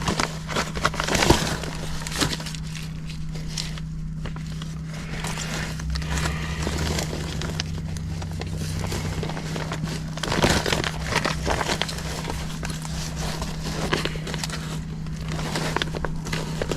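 Crinkling and scattered clicks of hands handling material during repair work, over a steady low hum.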